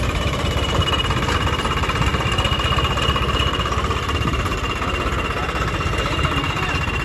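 Swaraj 855 FE tractor's three-cylinder diesel engine running steadily at low revs as the tractor creeps along, a rapid low thudding with a thin steady high whine above it.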